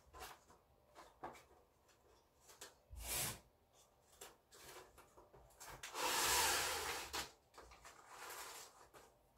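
Self-adhesive linen hinging tape being pulled off its roll and handled over the mat board: scattered small clicks and rustles, a knock about three seconds in, and a loud rasping rustle lasting about a second from around six seconds in, with a softer one near the end.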